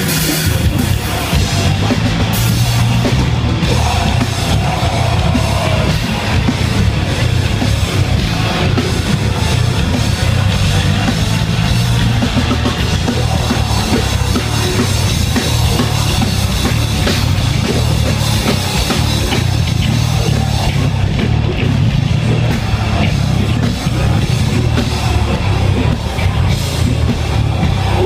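A live metal band playing loud: distorted electric guitars over a steady, driving drum kit beat.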